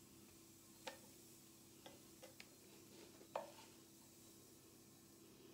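Kitchen tongs clicking and tapping against a plate a few times as strips of fried beef are laid on rice, the sharpest click a little past the middle, over faint room tone.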